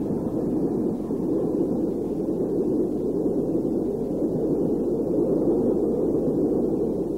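Steady, muffled rumble of a train running, with no separate exhaust beats or whistle standing out.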